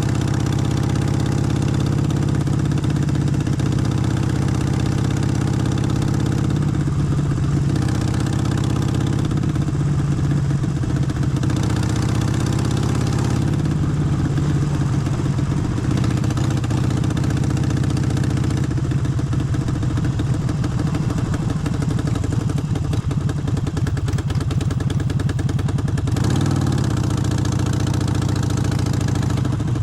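Harley-Davidson Forty-Eight's air-cooled V-twin running steadily at low revs, with a brief change in engine speed near the end.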